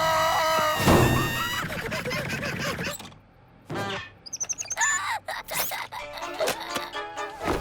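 Cartoon soundtrack: comic background music with sound effects, a hit about a second in, then a short break and quick chirping glides.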